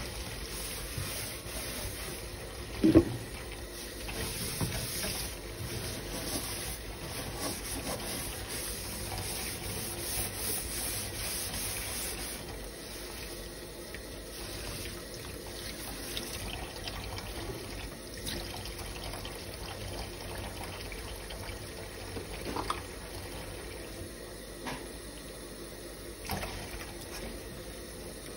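Kitchen tap running into a stainless steel sink full of soapy water while hands splash and scrub in it. A sharp knock stands out about three seconds in, with a couple of lighter knocks near the end.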